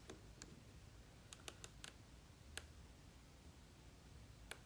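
Near silence with a handful of faint, scattered clicks.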